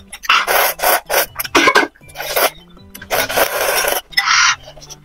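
A person loudly slurping spicy instant noodles in chilli sauce, about six hissing sucks, the longest lasting about a second roughly three seconds in.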